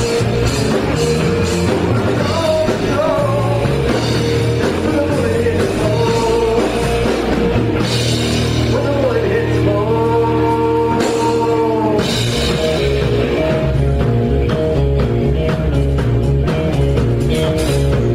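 Live rock band playing loud and steady: electric guitar over a drum kit, with singing at times.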